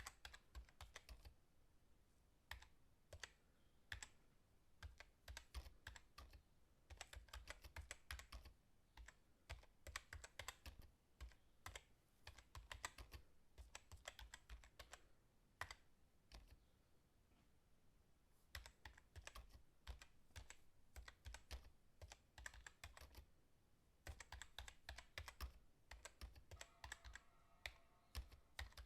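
Computer keyboard being typed on fast: quiet, rapid key clicks in runs of a few seconds, separated by brief pauses.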